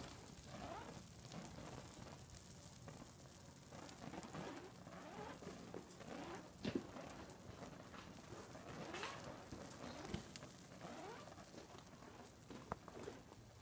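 Faint rain patter mixed with the light crackle of a burning chair, with a few sharper pops about seven, ten and thirteen seconds in.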